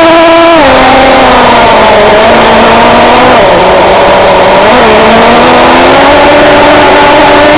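Traxxas Jato 3.3's small two-stroke nitro engine running at high revs and very loud, its pitch dropping about half a second in as the throttle eases. It then holds a steadier, lower note with a couple of brief blips.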